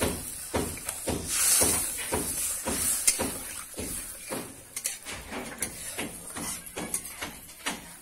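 A metal spatula stirring and scraping food in a wok, a few strokes a second, over a frying sizzle that swells twice in the first few seconds.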